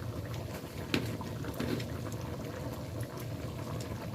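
Beef bistik in a coconut-milk and sweet-soy sauce simmering and bubbling in a pan as the sauce reduces, with one sharp tap about a second in.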